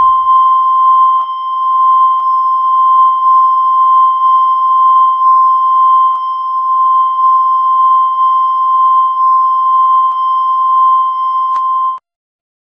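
A single long, steady electronic beep tone held unbroken at one pitch, cutting off suddenly near the end.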